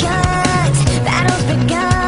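Rock song playing at a steady loudness, with a driving beat and pitched instrumental lines.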